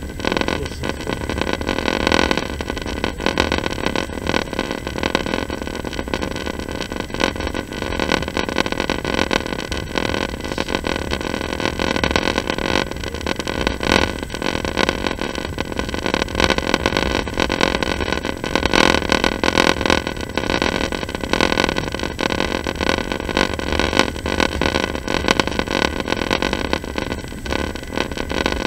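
Running noise of a moving passenger train heard from inside the carriage: a steady rumble and rush of wheels on rails with many small irregular clicks and knocks.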